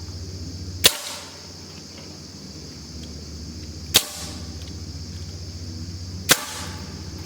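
Three sharp, loud bangs, a few seconds apart, each with a short ringing tail, over a steady low hum.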